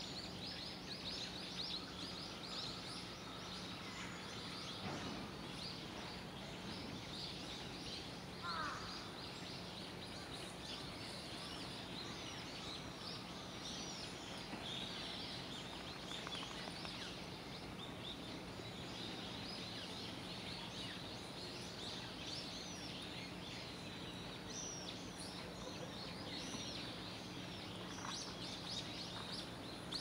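Many small birds chirping and twittering without a break, with one louder call about eight and a half seconds in. A steady low hum runs underneath.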